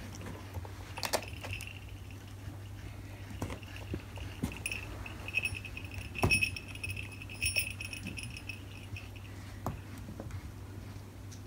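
Small metal jingle bell on a hanging cord jingling in an irregular, shaky run as a cat paws and tugs at the cord. The jingling starts about a second in and dies away near the end, with a couple of sharp knocks along the way.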